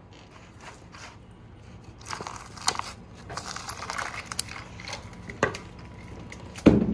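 Tape-lined mould wall being pulled off a cured epoxy resin pour: crackling and crinkling with many sharp clicks as the sheathing tape lets go of the resin. A heavy thump comes just before the end.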